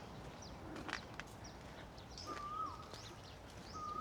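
Wild birds calling: one bird gives a whistled note, held level and then dropping at the end, twice, about a second and a half apart, among short high chirps from other birds.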